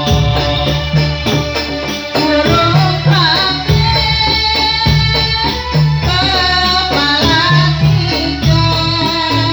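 Dolalak dance music: a voice singing a gliding melody over steady, dense drumming with a heavy bass pulse.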